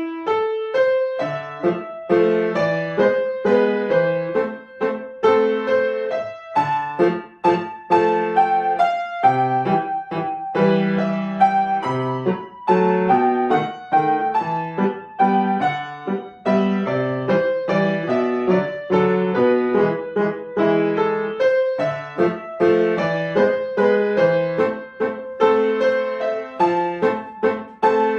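Solo piano playing a piece, with steady, closely spaced notes and chords.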